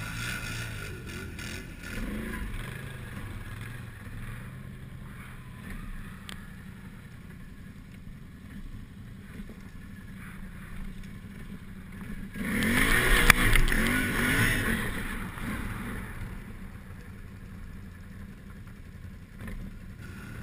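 Quad ATV engines running through snow on a Bombardier four-wheeler, with the engine revving hard for a few seconds just past the middle, its pitch rising and falling, before settling back to a steady drone.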